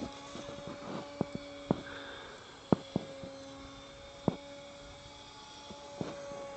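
Plank foamie RC plane's motor and propeller flying overhead, a steady hum. A handful of sharp clicks, louder than the hum, come at irregular moments through the first few seconds.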